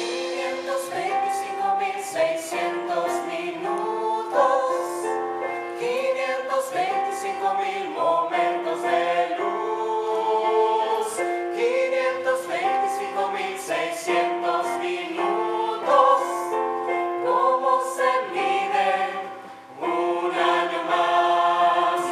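A mixed group of men and women singing a song together in harmony, in held, steady notes, with a short break a little before the end.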